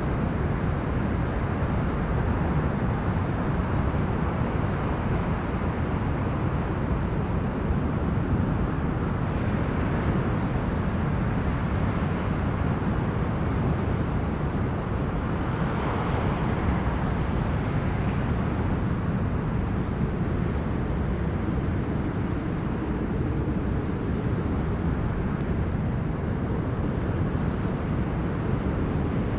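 Strong storm wind buffeting the microphone with a steady low rumble, over sea waves breaking on the shore. The wash of surf swells up about ten and again about sixteen seconds in.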